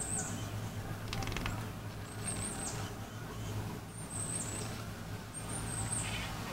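Steady low hum of distant traffic, with short high-pitched chirps every second or two and a brief rustle about a second in.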